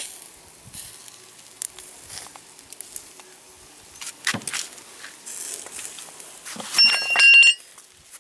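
Light crackling of chicken grilling over charcoal, then near the end a loud, ringing metallic clinking as the wire grill baskets are handled.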